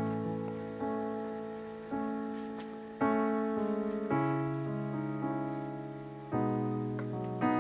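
Slow solo piano music: soft chords struck about once a second, each left to ring and fade, with one longer held chord in the middle.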